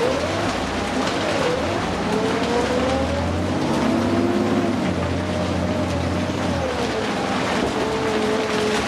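Interior of a New Flyer D60LFR articulated diesel bus under way, over a steady hiss. The engine hums strongly under load while a drivetrain whine rises and falls through gear changes. The low engine hum drops away about two-thirds of the way in, as the bus eases off, while the whine settles lower.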